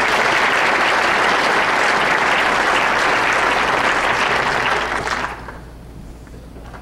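Audience applauding, a dense round of clapping that dies away about five seconds in.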